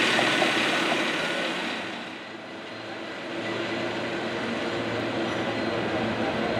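San Francisco cable car line: a steady rail rumble and rattle that dips about two seconds in and then builds again.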